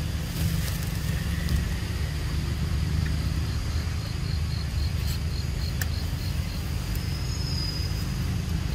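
Outdoor ambience: a steady low rumble under insects chirping high and thin. In the middle, one insect call pulses at about four chirps a second. A few faint clicks are scattered through it.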